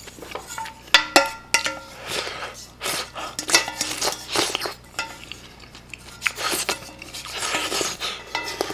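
A wooden spoon scraping and knocking against a stainless steel pan, with scattered sharp clinks and short metallic rings as the pan is handled and lifted. A person slurps broth straight from the tipped pan.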